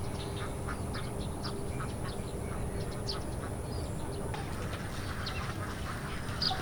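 Many short, repeated animal calls, quack-like, coming irregularly several times a second over steady background noise.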